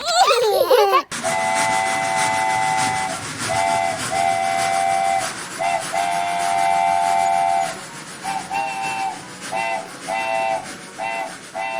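Steam locomotive chime whistle sounding a three-note chord, first in several long blasts and then in a quick run of short toots, over a steady hiss of steam.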